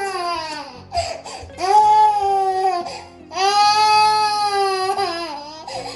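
One-year-old toddler crying in long wails: a falling cry at the start, then two longer held wails, the second lasting about two seconds.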